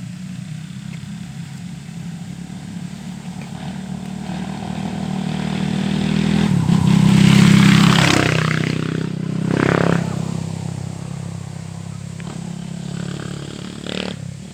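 Off-road rally motorcycle passing by: the engine note builds as it approaches, is loudest a little past the middle, then fades away, with a second, shorter swell about two seconds after the peak.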